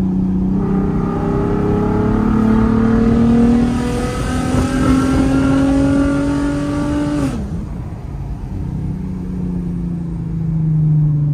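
Volkswagen R32's 3.2-litre VR6 engine and exhaust under hard acceleration, heard from inside the cabin: the pitch climbs steadily for about seven seconds, then the revs drop abruptly and the engine runs on at a lower, slowly falling pitch.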